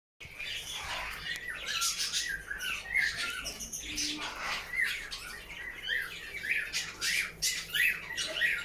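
Many caged birds calling at once, a steady chatter of short overlapping chirps and squawks.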